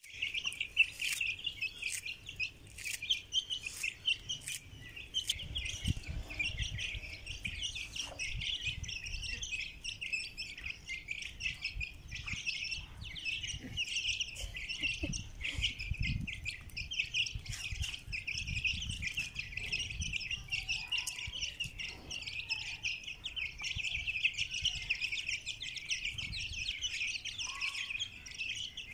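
A brood of young chicks peeping continuously, many high cheeping calls overlapping, with scattered sharp clicks.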